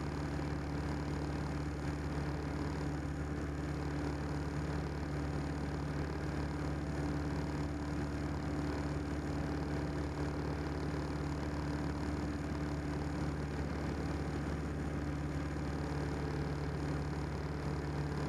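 1946 Piper J-3 Cub's four-cylinder air-cooled engine and propeller running steadily at cruise power, heard from inside the cabin, with an even, unchanging drone.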